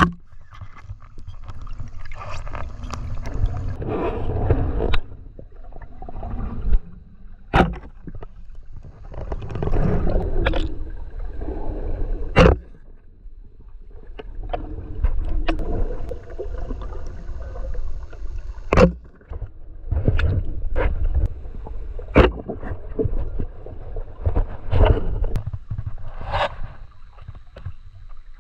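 Underwater sound of water moving against a diver's camera: surging gurgling and rushing in swells of a few seconds, with several sharp clicks or knocks spread through.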